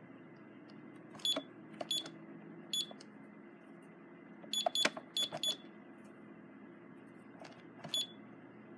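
Security alarm keypad beeping as its buttons are pressed: about eight short, high-pitched key-press beeps at irregular intervals, some with a soft click of the button.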